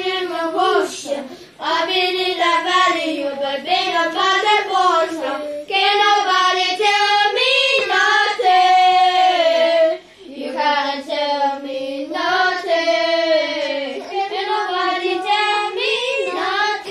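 A high voice, like a child's, singing a melody with long held notes, pausing briefly about ten seconds in.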